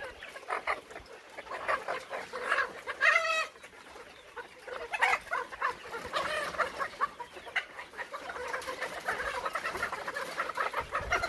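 A caged flock of young Arab laying hens (pullets) clucking and calling over one another, with one louder, drawn-out squawk about three seconds in.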